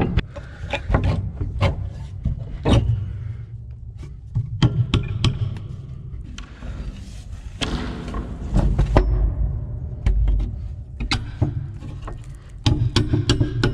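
Silo doors being shut at the bottom of an upright silo: a run of irregular knocks, thumps and bangs with some echo.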